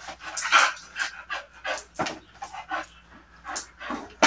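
Pit bull-type dog panting hard with its mouth open, in quick even breaths of about three a second.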